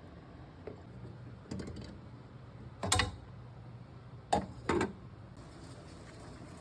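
A few short knocks and clatters of kitchenware being handled, the loudest about three seconds in and two more close together just after the middle, over a low steady hum.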